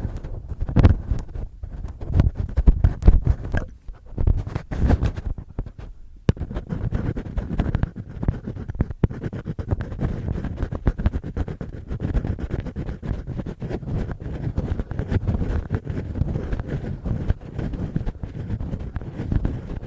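Fingertips and fingernails scratching and rubbing close against a binaural microphone, ear-cleaning ASMR. A few separate louder strokes come first, then steady close scratching from about six seconds in.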